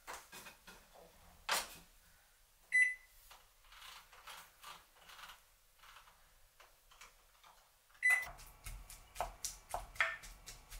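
Microwave oven being loaded and started: clicks and knocks of a glass bowl going in and the door shutting, then two short single-pitch beeps from the control panel, the second about 5 seconds after the first and followed by a low hum and more clicks.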